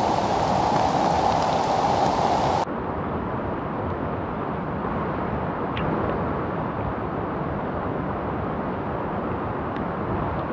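Steady rain falling on a tarp close by, louder at first, then after an abrupt cut about two and a half seconds in, a softer, even hiss of rain.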